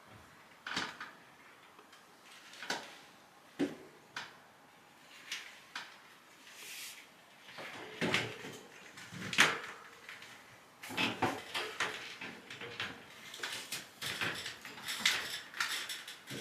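Hands working a furnace air filter and its vent: irregular knocks, clicks and rustling, sparse at first and busier in the last few seconds, with one sharper knock about nine seconds in.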